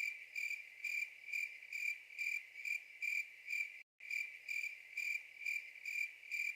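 Cricket chirping, a sound effect laid over a dead-silent soundtrack: a steady, high chirp a little over twice a second, with a brief break about four seconds in.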